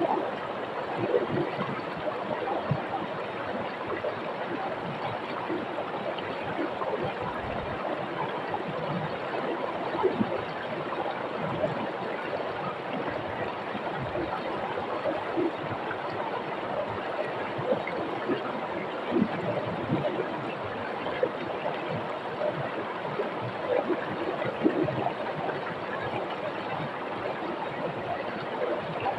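Rocky river flowing over stones: a steady rush of water with frequent brief, louder splashes.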